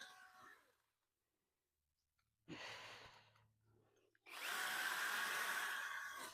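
Hyper Tough electric saw running in a short burst, then again more loudly for about two seconds near the end.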